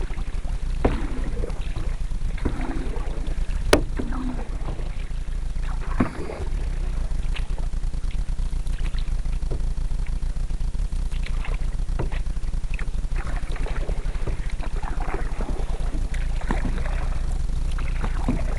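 Canoe paddle strokes dipping and pulling through calm water, with a few brief sharp knocks of the paddle against the hull, the sharpest about four seconds in, over a steady low rumble.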